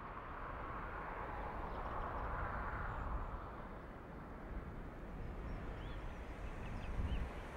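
Outdoor ambient noise fading in, with a steady low rumble and a broad swell that peaks a couple of seconds in. A few faint short high chirps come in the second half.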